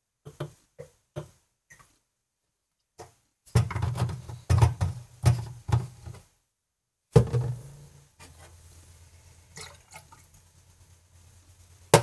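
Glass bottles and glasses being handled on a stainless-steel counter: a few light clicks, then a run of heavy knocks and clinks. After a further knock, a faint liquid trickle as the shot of coffee liqueur is poured into the glass mug, ending in a sharp clink.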